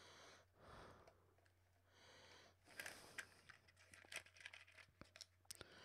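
Faint crinkling and ticking of candy packaging being handled, a plastic candy wrapper and a cardboard candy box, in quick irregular bursts through the second half.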